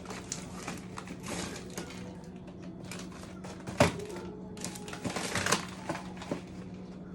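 Rummaging through a packed freezer: frozen food packages in plastic wrappers rustling, crinkling and clacking against each other, with one sharp knock about four seconds in, over a steady low hum.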